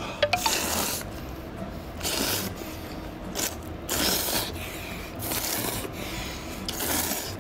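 A person slurping ramen noodles hard and fast: about six long, noisy slurps, roughly one a second.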